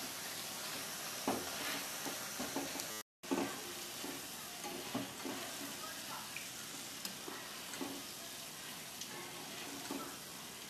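Boondi deep-frying in hot oil in a kadai: a steady sizzling hiss, with light clicks and scrapes of metal utensils stirring in the pan. The sound drops out briefly a little after three seconds in.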